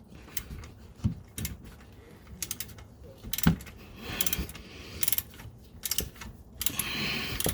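Ratchet clicking in short, irregular runs as a filter wrench is worked to loosen a spin-on oil filter, with a few sharper metal knocks between.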